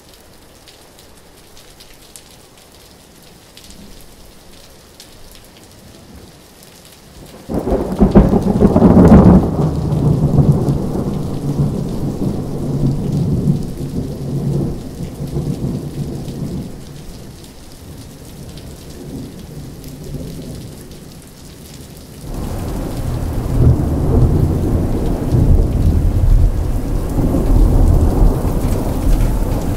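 Rain falling steadily, then a sudden loud thunderclap about a quarter of the way in that rumbles for several seconds and fades. A second peal of thunder breaks in sharply about three-quarters of the way through and keeps rumbling over the rain.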